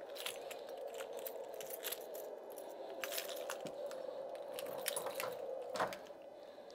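A bunch of keys jangling in a hand as a series of small metallic clicks and jingles, with a louder click near the end as an office door latch is worked. A steady hum runs underneath.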